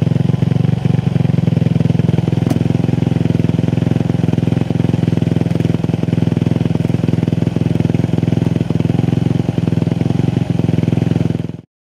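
Motocross bike engine running steadily at idle, with an even, unchanging pitch; the sound cuts off abruptly near the end.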